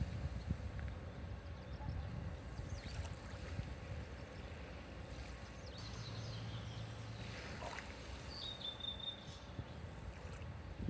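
Small waves washing and lapping on a beach shore, a steady low wash of water. A short high chirp sounds about eight and a half seconds in.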